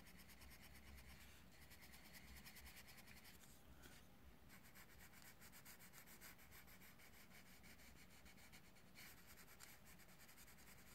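Faint scratching of a coloured pencil shading on paper, light rubbing strokes that blend the colour in.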